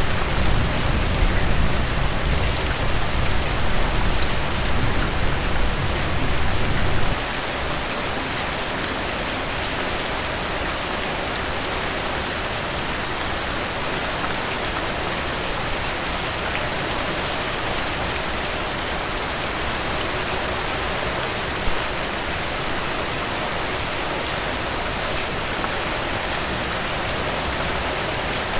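Heavy rain falling steadily, a dense even hiss of drops. A deep low rumble sits under it for the first seven seconds and stops abruptly.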